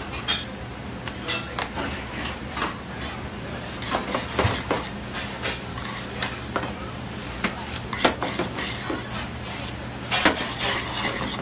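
A metal spoon stirring spaghetti in a stainless steel sauté pan, with irregular scrapes and clinks against the pan. There is a louder clatter about ten seconds in as the pan is tossed, all over a steady low hum.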